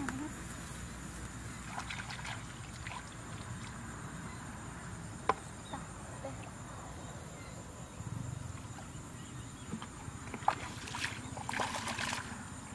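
Sloshing and splashing of shallow muddy water as someone wades through it, mostly near the end. Before that come quieter scattered handling noises, with a sharp click about five seconds in and another about ten and a half seconds in.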